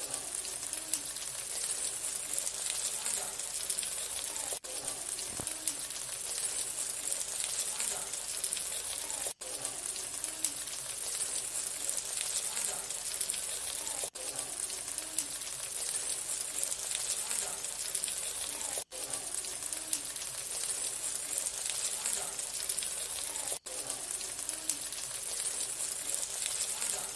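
Karimeen (pearl spot fish) sizzling in coconut oil on a banana leaf in a hot wok: a steady, crackling hiss, with a brief dropout about every five seconds.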